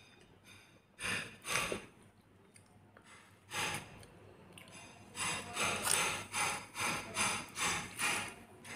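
Close-miked eating sounds of soft khichuri eaten by hand: a few short, wet bursts, then a run of rhythmic chewing and squishing, about two a second, in the second half.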